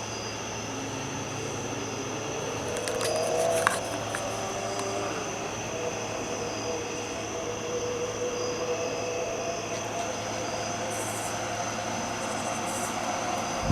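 A steady distant mechanical hum that rises in pitch over the first few seconds and then holds level, with a steady high insect-like buzz underneath and a single click nearly four seconds in.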